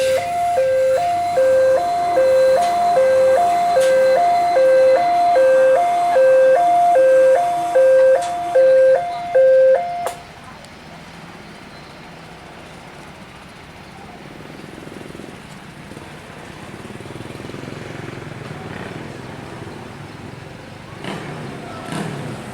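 Electronic two-tone level-crossing warning alarm, alternating high and low about three times a second, which cuts off suddenly about ten seconds in, as it does when the crossing clears. Faint road traffic noise follows.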